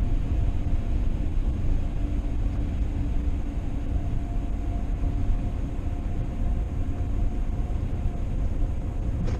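Steady low rumble of road and engine noise from a moving vehicle, with a faint constant hum over it.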